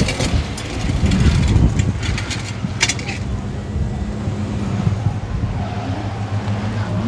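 Holden Commodore ute engine running as the car rolls slowly past, a steady low drone. A few sharp clicks sound over the first three seconds.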